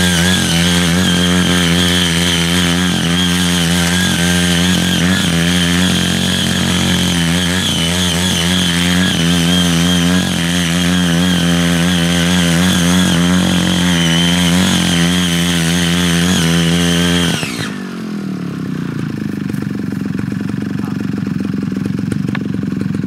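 CY80 mini power tiller's 78.5 cc engine running at high revs as its six rotary tilling blades churn the soil, the pitch wavering slightly. About 17 seconds in the throttle is let off and the engine drops to a lower, rougher idle.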